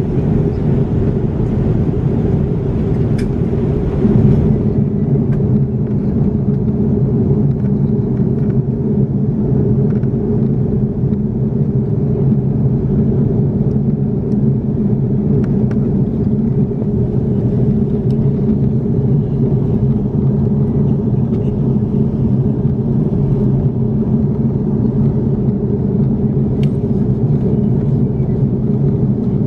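Airbus A330-200 cabin noise: the steady low drone of the engines and rushing air, with several steady hum tones. The higher hiss drops a little about four seconds in, and there are a few faint clicks.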